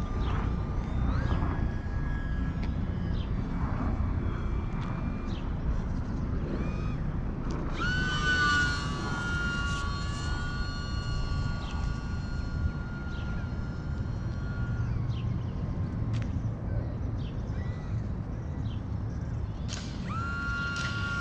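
E-flite UMX Pitts micro RC biplane's small electric motor and propeller whining in flight, the pitch rising and holding steady about eight seconds in and rising again near the end, over a steady low rumble.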